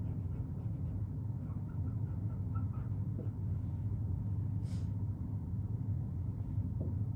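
Steady low room hum, with a dry-erase marker faintly squeaking in short strokes on a whiteboard and one sharp click near the five-second mark.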